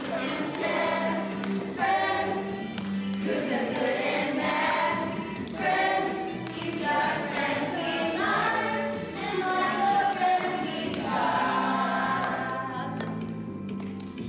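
A group of children and adults singing a worship song together, in sung phrases of a few seconds each with held notes.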